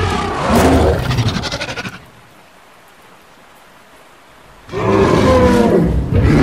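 Two loud dinosaur roars, creature sound effects with a wavering pitch. The first trails off in a rapid rattle about two seconds in, and the second starts near the five-second mark. Between them, faint rain hiss.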